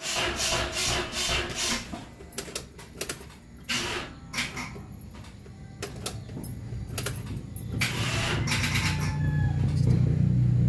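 Car starter cranking the engine sluggishly in a few slow, evenly spaced surges without it catching, the sign of a weak battery, followed by scattered sharp clicks. A low steady drone builds from about eight seconds in.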